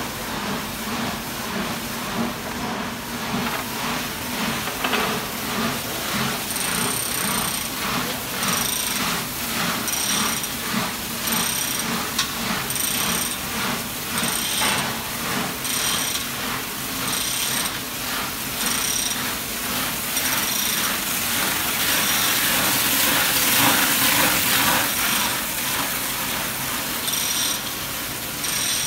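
Hand chain hoist being pulled to lower a drum mixer head, its chain rattling over the hoist with rapid ratchet-like clicking. Short high-pitched squeaks recur about once a second from about a quarter of the way in.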